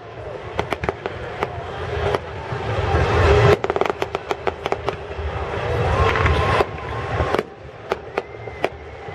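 Fireworks display: scattered bangs and crackles, with a rapid run of crackling about three and a half seconds in.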